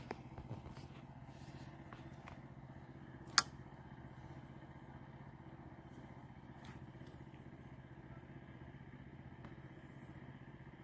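A steady low engine hum, some vehicle or motor running, with one sharp click about three and a half seconds in.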